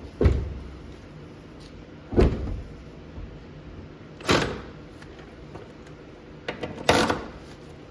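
Car door being shut, four heavy thumps about two seconds apart.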